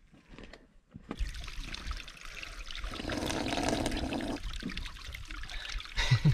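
Water trickling down a rock face right by the microphone as a man drinks from the seep with his mouth against the rock. It starts about a second in and is loudest for a moment around the middle.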